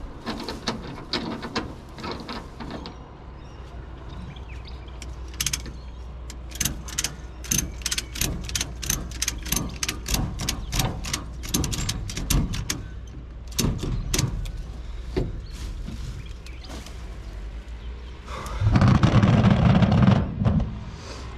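Pruned branches and green fronds crackling and snapping as they are worked and packed down in a trailer, with a run of sharp snaps about two or three a second through the middle. Near the end comes a loud rumbling burst of about two seconds.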